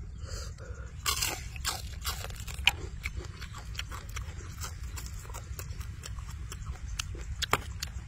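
Close-up crunching and chewing of fried chicken, a run of crisp crackly bites thickest about one to three seconds in, with another sharp crunch near the end. A steady low rumble runs underneath.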